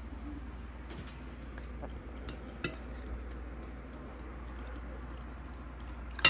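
Fork and spoon clinking lightly a few times against a ceramic dinner plate, over a steady low hum, with one sharper, louder click right at the end.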